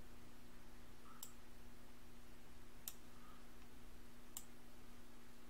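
Three faint computer mouse clicks, about a second and a half apart, over a low steady hum.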